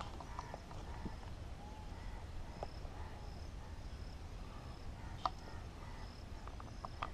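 Quiet woodland ambience: an insect chirring faintly in short repeated pulses and soft bird calls over a low rumble, with a single small click about five seconds in.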